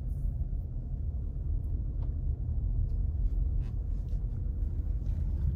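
Steady low rumble of a car driving, heard from inside the cabin: engine and tyre noise, with a few faint ticks.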